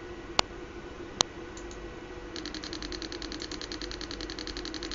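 Small speaker driven by an Arduino Mega2560: two sharp clicks in the first second and a half, then a rapid, even buzzing pulse train of about a dozen pulses a second starting a little before halfway. A faint steady hum runs underneath.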